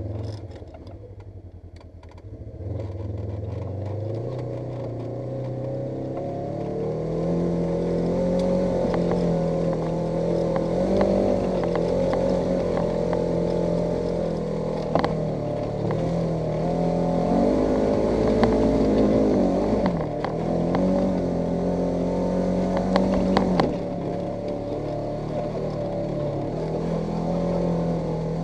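Polaris RZR 900 S side-by-side's twin-cylinder engine accelerating about two and a half seconds in, then running under load with its pitch rising and falling. A few sharp knocks come through along the way.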